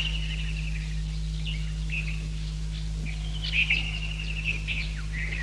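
Songbirds chirping and trilling in several short phrases, a cartoon's countryside ambience, over a steady low hum.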